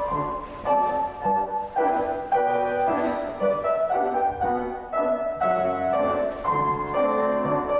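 Piano accompaniment for a character dance barre exercise, playing a rhythmic, dance-like tune.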